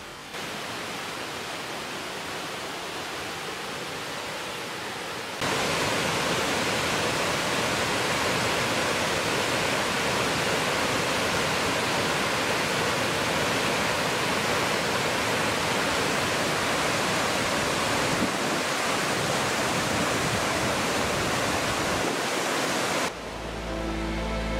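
Steady rushing of a whitewater waterfall cascading down granite slabs, a step louder about five seconds in. Music comes back in near the end.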